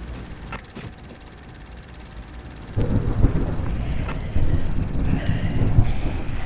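Thunder sound effect: a loud, low rumble that starts suddenly about three seconds in and is cut off abruptly at the end. Before it there is a quieter noisy bed with a few sharp clicks.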